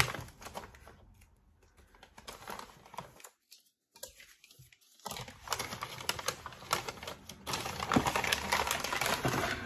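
Small paper bag being torn open and handled, crinkling and rustling in quick crackly clicks. A sharp snap at the very start, a few seconds of near silence, then busier rustling from about halfway in as the contents are pulled out.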